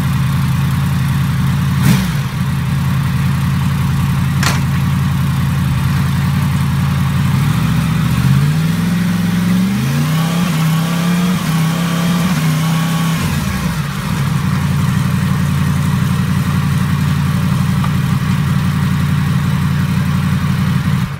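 Yamaha MT-10 crossplane inline-four idling, with two sharp clunks about two and four and a half seconds in. From about seven seconds the revs climb in stepped rises as it is shifted up through the gears on the stand, each shift marked by the brief engine cut of a freshly fitted quick shifter. It then drops back to idle and stops suddenly.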